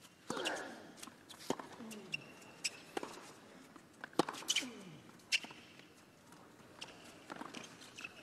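Tennis rally on a hard court: the ball is struck by the rackets about every second and a half, with fainter ball bounces between the strokes. A short grunt that falls in pitch comes with several of the shots.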